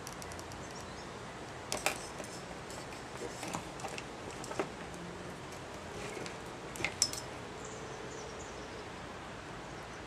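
Light, sharp plastic clicks and scrapes of a thin pick tool working in a plastic ECU connector to release a wire's terminal, scattered and irregular, the loudest pair about seven seconds in, over a steady faint hiss.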